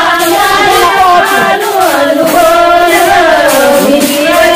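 A group of women singing a traditional Marathi work song together, the kind sung while cleaning rice for a wedding. The voices hold long notes that slide slowly up and down in pitch.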